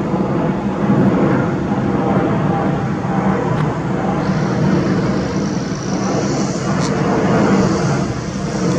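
Boeing 787-8 airliner's twin jet engines at climb power just after takeoff: a steady, loud low rumble, with a higher hiss joining about four seconds in.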